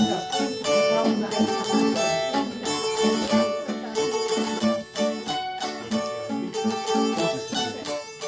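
A Raffele, the Tyrolean fretted zither, and an acoustic guitar playing a march together: a quick plucked melody on the Raffele over the guitar's rhythmic accompaniment.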